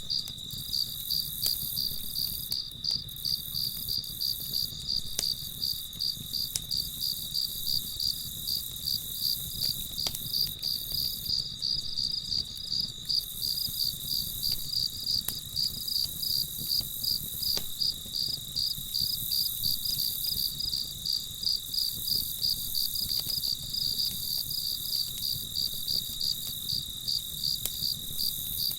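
Crickets chirping at night in an even, fast, unbroken rhythm over a steady high trill, with a few faint ticks and a low rumble beneath.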